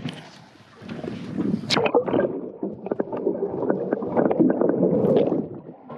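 Water sloshing and gurgling with many small splashy clicks, starting about a second in and dying away near the end.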